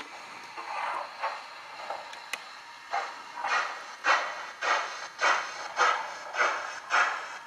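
Zimo sound decoder in a Hornby OO gauge model of the LNER A4 Bittern playing steam exhaust chuffs through its small speaker. The chuffs are irregular at first, then from about three seconds in grow louder and settle into an even beat of a little under two chuffs a second.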